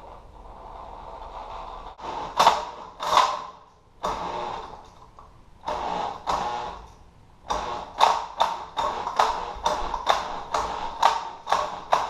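Hand tool working on a small Briggs & Stratton engine: sharp metal-on-metal strokes, a few scattered ones early and then a steady run of about two a second from around halfway in.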